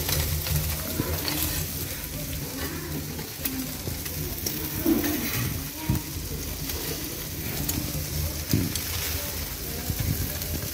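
Marinated beef-heart anticuchos and chicken sizzling on a grill grate over hot charcoal, with scattered pops and crackles.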